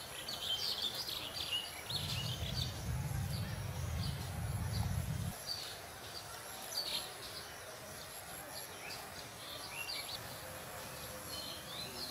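Small birds chirping in short, scattered calls, with a low rumble for about three seconds starting about two seconds in.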